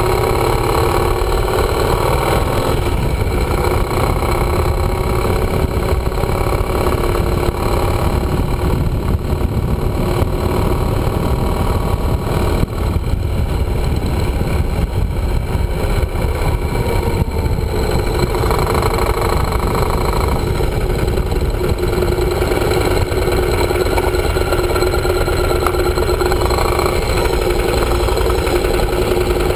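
Yamaha motorcycle engine running as the bike is ridden, with wind noise on the microphone. The engine note shifts in pitch as the speed changes and settles into a steady note near the end.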